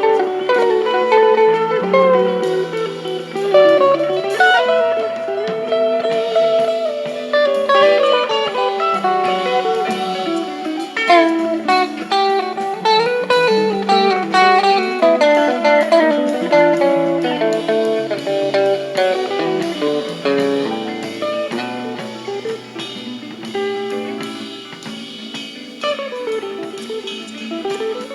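Electric guitar (a Stratocaster-style guitar through a Crybaby wah pedal into a Fender Blues Junior tube amp) playing lead lines with bends and sweeps over a recorded band backing track with bass and drums.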